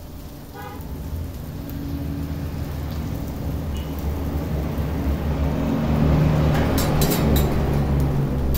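A low mechanical rumble, like an engine running, swelling louder over several seconds, with a few sharp clicks near the end.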